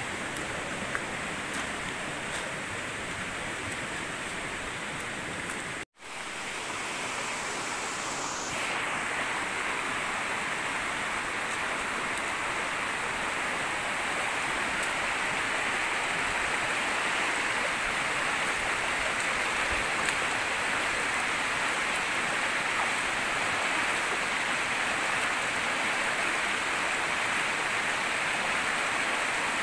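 Steady rushing of water. About six seconds in it cuts out for an instant, then comes back louder.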